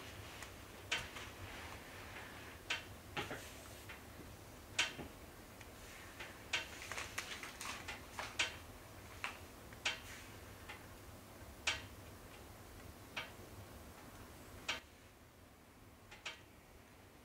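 Logs burning in a wood stove, crackling with irregular sharp snaps and pops, over a low steady hum.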